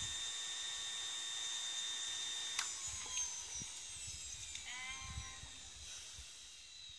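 Electric centrifugal juicer's motor running with a steady high whine. A click comes about two and a half seconds in, after which the whine slowly winds down and fades.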